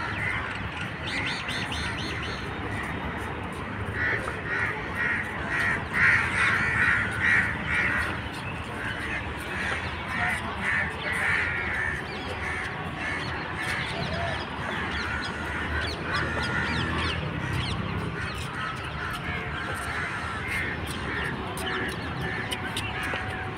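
Crows cawing in a long run of repeated calls, loudest and thickest about four to eight seconds in, then thinning to scattered caws.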